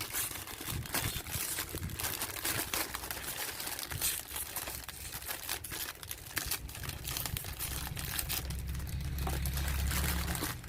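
Packaging crinkling and rustling with irregular clicks and knocks as a toy is handled out of its box. A low rumble comes in for the last few seconds.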